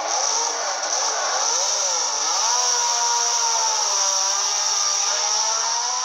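Ferrari 312 B3 racing car's 3-litre flat-12 engine being blipped, its pitch swinging up and down about once a second. From about halfway it holds fairly steady revs, drifting slightly lower.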